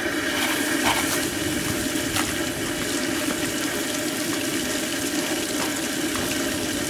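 Garden hose water running steadily through flush muffs on an outboard motor's lower unit, supplying cooling water to the motor's water pump.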